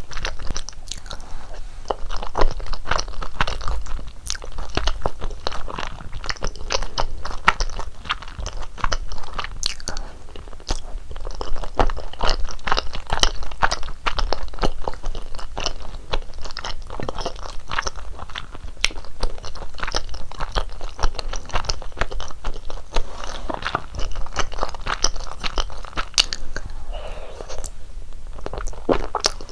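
Close-miked eating sounds: chewy rice cakes in a thick rosé cream sauce being bitten and chewed, a dense run of wet mouth clicks and smacks. Near the end the chewing briefly gives way to a softer, smoother sound.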